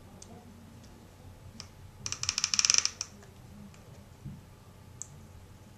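Plastic adjustment buckle on a kids' swim mask's silicone strap clicking in a rapid run for about a second as the strap is pulled through it, with a few single small ticks before and after.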